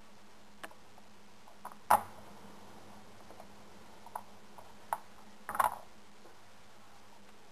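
A few scattered light clinks and taps of metal or glass from laboratory apparatus being handled, the loudest a single sharp clink about two seconds in and a quick cluster of clinks a little after five and a half seconds.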